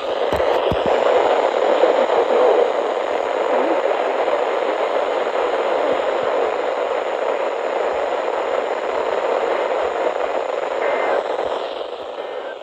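Radio static: a loud, steady hiss with a few clicks at the start, dying down near the end.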